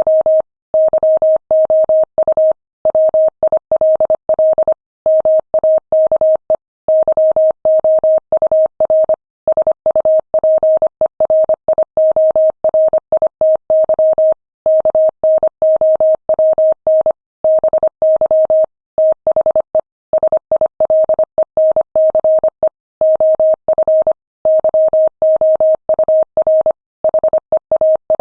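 Morse code sent at 25 words per minute: a single mid-pitched tone keyed on and off in quick dots and dashes, with brief pauses between words.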